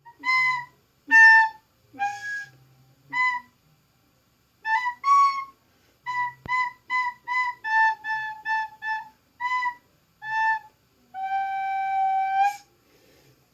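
A short tune played note by note on a flute-type wind instrument, with a run of quick short notes in the middle and ending on one long held note.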